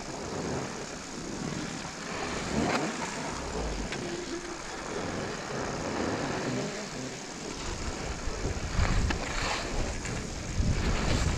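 Hiss of sliding over snow, with wind buffeting the action camera's microphone. The low rumble grows stronger in the last few seconds as speed picks up.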